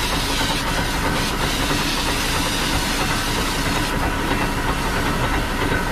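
Water jet from a fire hose hissing steadily as it sprays onto the road and a person's legs, over the steady drone of the fire engine's pump running.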